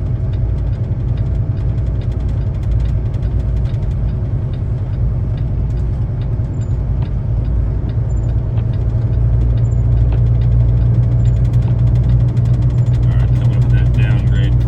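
Semi-truck's diesel engine running steadily in a low gear, heard from inside the cab, with a constant stream of light ticks over the hum. It gets slightly louder about ten seconds in.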